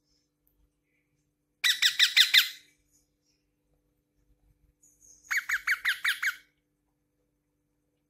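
Indian ringneck parakeet calling in two rapid series of short, high, falling notes, about seven a second, the first near two seconds in and the second about five seconds in.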